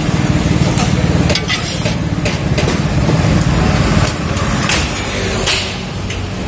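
A metal spatula scrapes and knocks against a round iron griddle as a large pancake is lifted off and folded, heard as several short sharp scrapes and knocks. Under them runs a steady low, engine-like mechanical hum.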